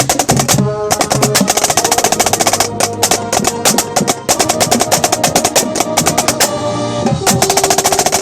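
Marching snare drum played close up, with rapid rudimental strokes and rolls, over a drum and bugle corps' brass section holding sustained notes. The ensemble swells near the end.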